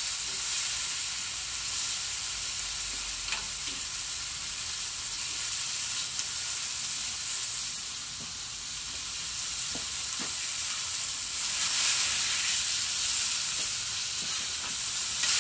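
Thick chuck steaks sizzling in butter on a heavy griddle, a steady frying hiss that swells louder about twelve seconds in, with a few faint knocks.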